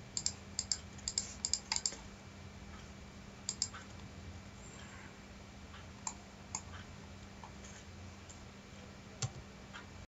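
Computer keyboard keys and mouse buttons clicking: a quick run of about ten clicks in the first two seconds, then scattered single clicks, over a faint steady low hum.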